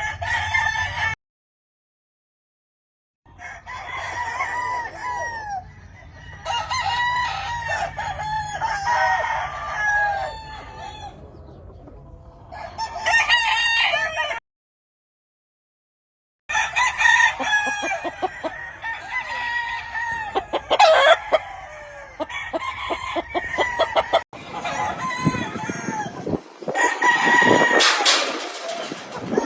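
Several gamefowl roosters crowing, their calls overlapping one another. The sound cuts out completely twice, about a second in and again around fourteen seconds, for about two seconds each time.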